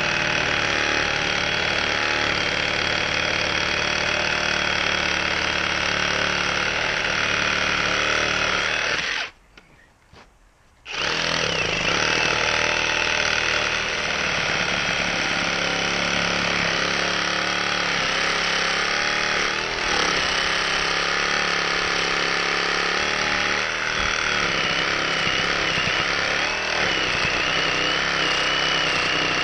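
Milwaukee M18 Fuel Sawzall cordless reciprocating saw cutting through dense, wet green wood with a heavy-duty wood blade, a steady rattling buzz of fast blade strokes under heavy load. It stops for about a second and a half about a third of the way in, then starts cutting again, with a wavering whine in the last few seconds.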